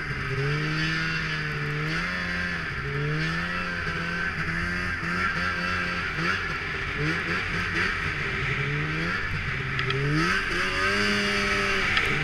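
Snowmobile engine running under constantly changing throttle, its pitch rising and falling again and again, over a steady rushing hiss.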